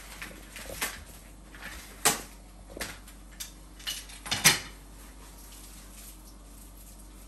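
Parts of a Jolly Jumper baby jumper stand being handled during assembly: a run of sharp clinks and knocks, the loudest about two seconds in and again about four and a half seconds in, then they stop.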